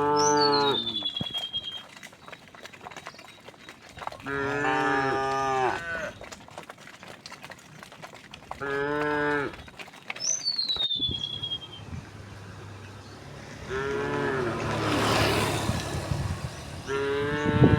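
Cows mooing, five long calls a few seconds apart. Two short high falling whistles come early and about two-thirds of the way through.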